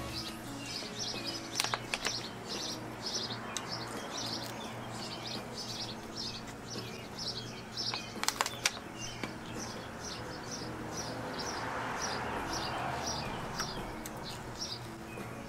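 A bird chirping over and over, about twice a second, over faint background music. A few sharp clicks sound about two seconds in and again about eight seconds in.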